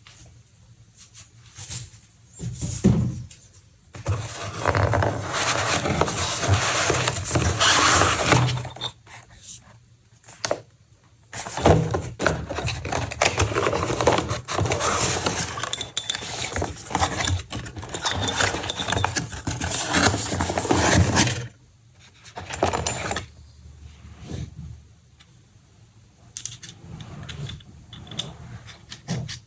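Graphics-card packaging being handled and unpacked: two long spells of rustling and scraping, with scattered clicks and taps between them and more light clicks near the end.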